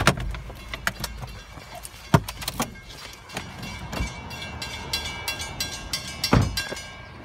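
Railroad grade-crossing warning bell ringing rapidly while the gates are down, with several sharp knocks and thumps over it; the loudest come about two seconds in and near the end.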